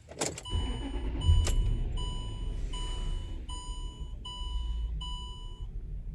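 The 2005 Land Rover LR3's 4.4 V8 idling rough with one fuel injector unplugged, a low uneven rumble. Over it, a warning chime beeps about eight times in a steady rhythm and stops near the end. A sharp click comes right at the start.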